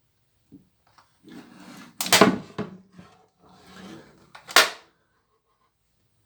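Hard objects being handled: two spells of rubbing, each ending in a sharp knock, the knocks about two and a half seconds apart.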